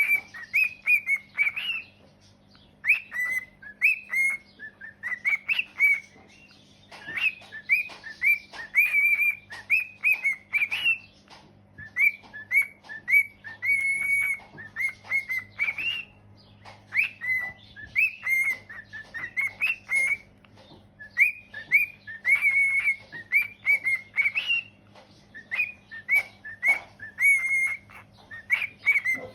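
Pet cockatiel singing: phrases of clear whistled notes and short upward-swooping chirps, broken by brief pauses. A faint steady low hum runs underneath.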